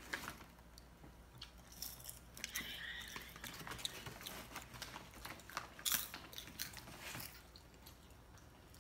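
Twix caramel popcorn being crunched and chewed close to the microphone, ASMR-style: a quick run of crisp crackles that dies away about seven seconds in.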